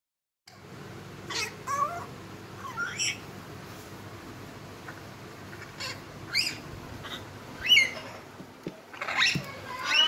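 African grey parrot making a string of short chirping, whining calls, several gliding up in pitch, with a pause of a couple of seconds early on between them.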